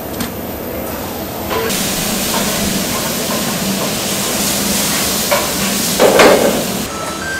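Water spraying and splashing over cooked noodles in a plastic colander as gloved hands rinse and squeeze them, with a louder splash about six seconds in. The hiss of water sets in about a second and a half in and stops near the end.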